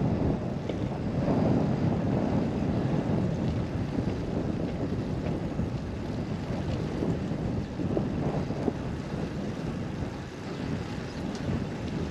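Wind buffeting the microphone: a steady low rumble that rises and falls in gusts.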